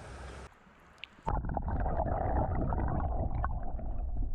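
Creek water: first a hiss of rushing water, then after a short quieter gap a louder muffled rumble of moving water with scattered light clicks and knocks, like sound heard with the microphone under the water.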